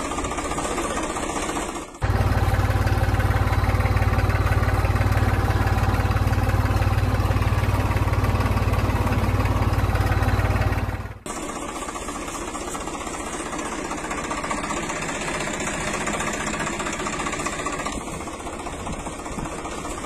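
Small motor of a miniature DIY tractor running steadily. About two seconds in, the sound cuts abruptly to a louder, deeper run, then drops back to a lighter one about eleven seconds in.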